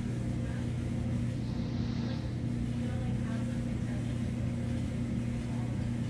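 Steady low machine hum holding one pitch, with faint voices in the background and a brief soft hiss about two seconds in.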